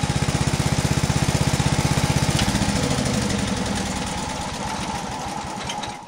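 Old garden tractor's small engine idling with a steady, even beat, its repaired idler pulley no longer making a racket. About two and a half seconds in there is a click and the beat softens, running a little quieter toward the end.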